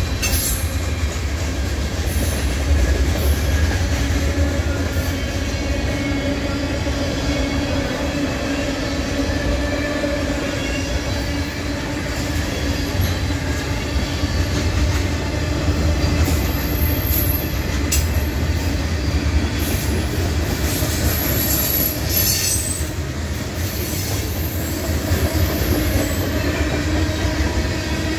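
Loaded freight cars of a mixed freight train rolling past on steel wheels: a steady heavy rumble with a faint wavering squeal from the wheels on the rail, and a few light clanks between about 17 and 23 seconds in.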